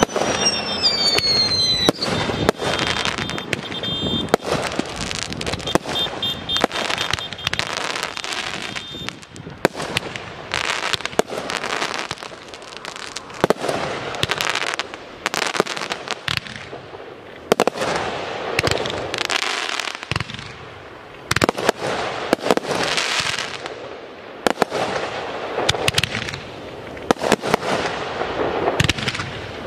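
Aerial fireworks display: a rapid barrage of shell bursts and crackling, a couple of falling whistles in the first two seconds, and bangs continuing in quick succession.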